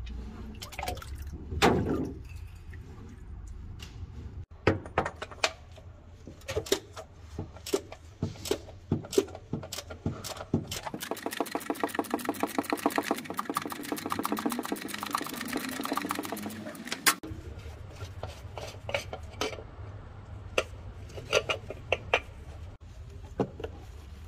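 Ratchet wrench clicking rapidly and evenly for about six seconds in the middle, on a socket fitted to the Mini Cooper engine's oil filter housing cap. Around it are scattered metal clinks and knocks of tools.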